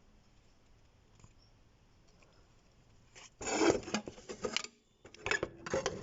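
Near silence, then about halfway through a burst of rubbing and scraping noises, followed near the end by a second, choppier burst.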